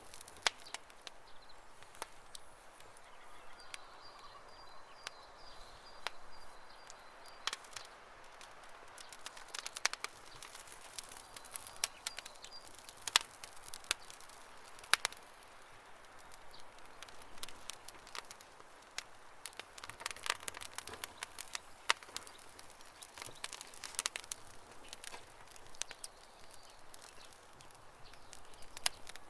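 Campfire burning wood, crackling with irregular sharp pops and snaps over a soft hiss of flames.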